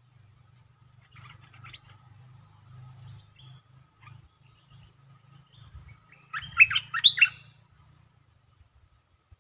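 Stripe-throated bulbul calling: faint scattered chirps, then a loud burst of several quick notes about six and a half seconds in.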